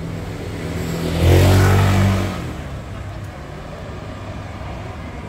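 A motor vehicle passing close by: a steady low engine hum, then a swell of engine and tyre noise about a second in that fades again after another second or so.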